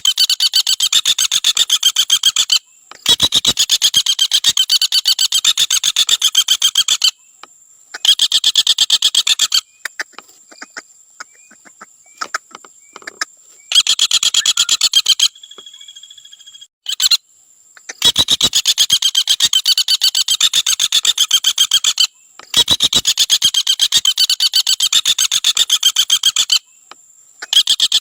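Common flameback woodpecker giving its rapid, rattling trill call in repeated runs of about two to four seconds each, with short pauses between them.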